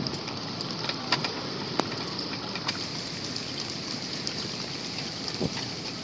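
Steady rain falling on paved ground, with a few sharp clicks in the first two seconds.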